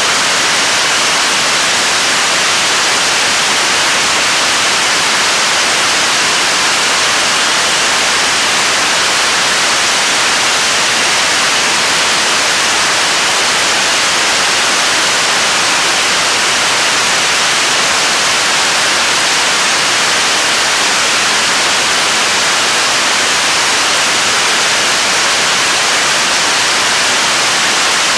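7-tonne-class kerosene and liquid-oxygen rocket engine, the third-stage engine of the Korean launch vehicle, firing steadily in a hot-fire test: an even, loud hiss of exhaust, more hiss than rumble, that does not change in level.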